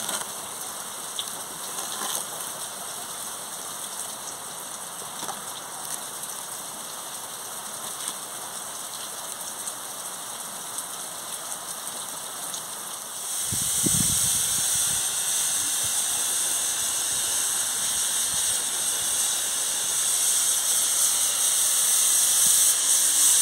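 Wood fire burning under a pot of stewing chicken: a steady hiss with a few faint crackles. About halfway in, the hiss grows louder and wind starts to rumble on the microphone.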